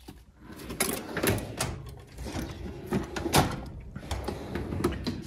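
Steel drawers of a Husky 41-inch tool chest being slid shut and pulled open. The slides rumble, and the tools inside shift with irregular clicks and metallic knocks.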